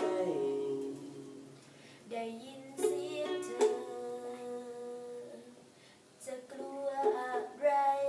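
A song: a voice singing long held notes over a plucked string accompaniment, with chords struck every second or few.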